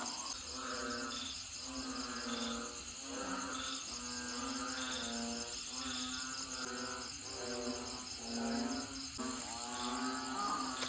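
Crickets chirping in a steady high trill, over soft background music whose pitched phrases repeat about once a second.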